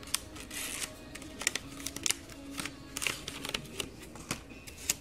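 A fidget spinner's retail packaging being opened by hand: irregular rustling and crinkling with sharp clicks and snaps.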